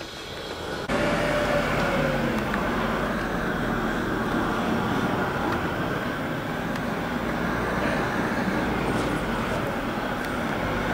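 Steady road-traffic noise, starting abruptly about a second in.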